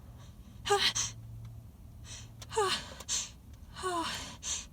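A woman's sneeze build-up: three gasping inhales, each with a voice sound that slides down in pitch and ends in a breathy huff, spaced over a couple of seconds as a sneeze approaches.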